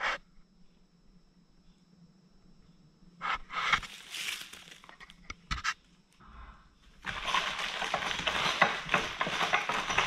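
Plastic packing strips and cardboard packaging rustling and crinkling as a cat rolls and paws in them. It comes in short spells a few seconds in, then runs as a dense crackle with many small clicks from about seven seconds in.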